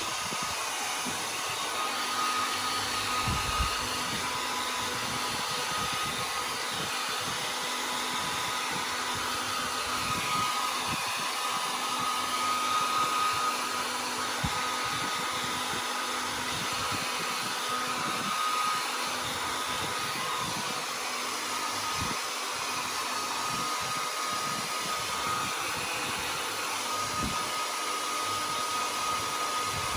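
A dryer and an electric fan running together, making a steady airy rush with a faint high whine in it.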